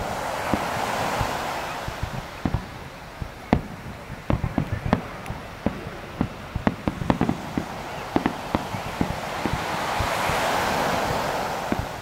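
Starmine fireworks barrage: aerial shells bursting in quick, irregular succession, dozens of sharp bangs and cracks, thickest in the middle. A rushing swell of noise rises at the start and again near the end.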